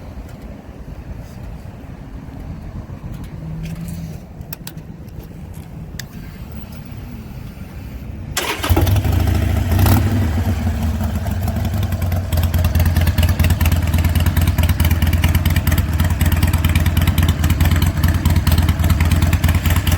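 Harley-Davidson Iron 883's air-cooled 883 cc V-twin starts up suddenly about eight seconds in, gives a short blip of throttle, and settles into a steady loud idle. Before it starts there is only a low rumble with a few faint clicks.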